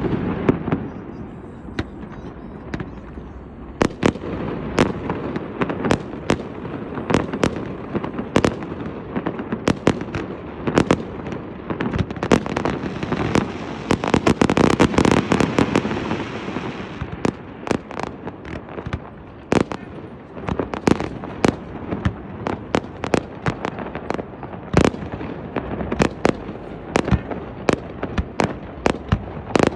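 Aerial fireworks display going off: a rapid string of sharp bangs, thickening into a dense, continuous barrage around the middle before separate bangs return.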